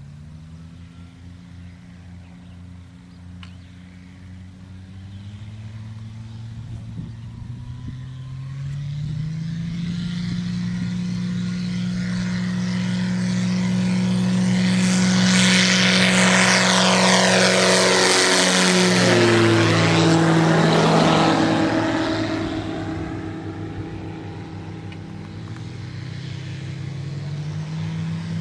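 Propeller and Viking Honda engine of a Zenith CH701 light aircraft going up to takeoff power, the pitch rising, then growing loud as the plane lifts off and flies over, the pitch dropping as it passes and fading away. Another aircraft engine runs near the end.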